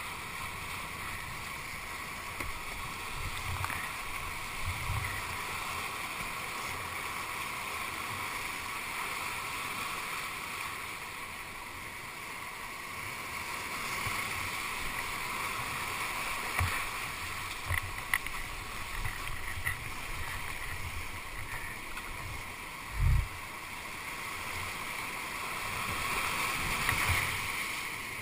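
Whitewater rapids rushing steadily, heard close up from a camera on a kayak's bow, with scattered low thuds of water slapping the boat and one heavy thump about three quarters of the way through.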